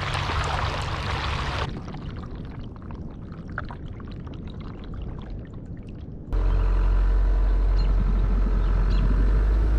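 Kayak paddling: the paddle blades splash and water trickles off them, first on choppy river water and then more softly on calm water. About six seconds in, a sudden steady low rumble of wind on the microphone takes over.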